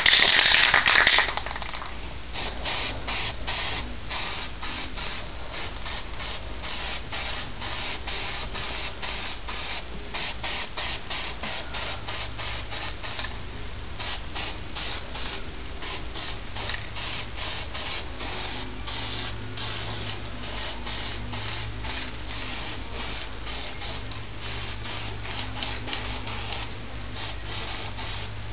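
Aerosol spray paint can spraying in short, quickly repeated hisses, about two or three a second, after one longer spray at the start, as light coats go onto plastic interior trim pieces.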